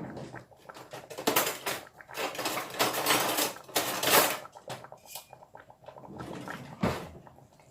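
Kitchen handling noises: rustling and scraping with quick clicks and clatter, loudest in the middle, and a single sharp knock near the end.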